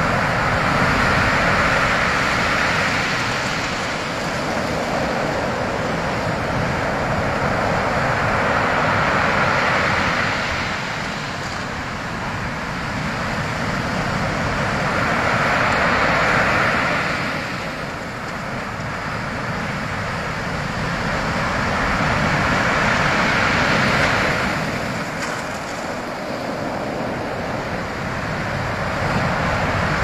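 Sea waves breaking and washing up a shingle beach. The surf rises and falls every seven seconds or so, with a steady rush in between.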